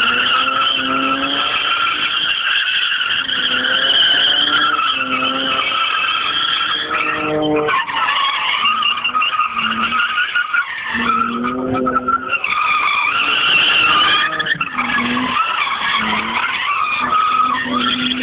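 Car drifting: its tyres squealing hard as it slides, with the engine revving up and down underneath; the squeal breaks off briefly a couple of times.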